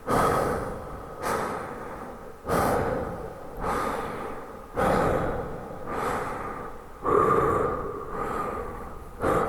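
A man breathing rapidly, a sharp breath about every second, each one trailing off in a long, heavy reverb.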